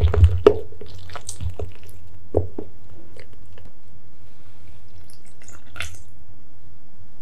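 A lemon half pressed and twisted on a plastic citrus juicer, a few wet squelching, crunching squeezes in the first couple of seconds. Near the end, lemon juice poured from the juicer's spout into cake batter with a faint trickle and drips.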